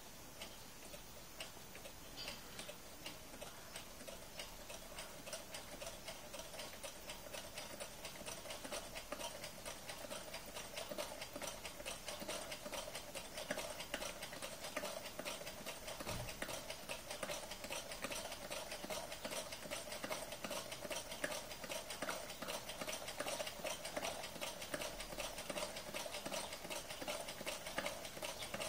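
Homemade Stirling engine running, with a rapid, even clicking from each turn of its mechanism over a steady hum; it grows louder as it runs.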